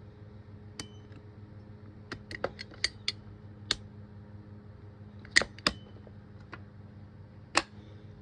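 About a dozen sharp clicks and taps at irregular intervals, from a fire alarm control panel being handled, over a steady low hum.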